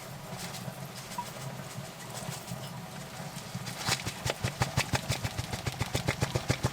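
A kitchen utensil knocking rapidly and evenly against a pot as a thickened sauce is stirred. The knocking starts about four seconds in, at roughly six to eight strokes a second, over a steady low hum.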